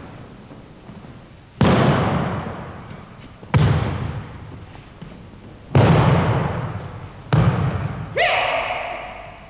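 Aikido partners thrown onto gym mats in breakfalls: four heavy thuds about two seconds apart, each echoing in a large hall. A short shout comes near the end.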